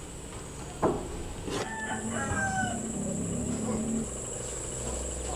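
Steady high-pitched insect chirring, with a few short animal calls over it, the first about a second in.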